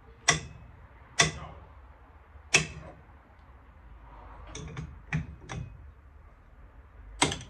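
Sharp metal-on-metal knocks, most likely a hammer tapping a screw extractor into a drilled-out stuck bolt. Three loud strikes come in the first three seconds, then a few lighter taps, then one more loud strike near the end.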